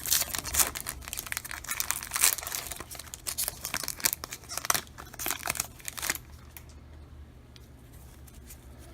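A trading-card pack wrapper being torn open and crinkled by hand, dense crackling for about six seconds, then dying down to faint handling.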